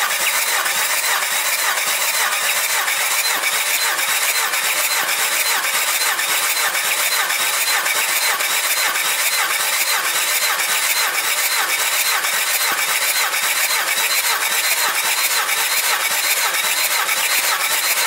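Starter motor cranking a Mitsubishi 4D56U 2.5-litre turbo-diesel with its injectors removed, turning over steadily and rhythmically without firing, during a compression test on one cylinder.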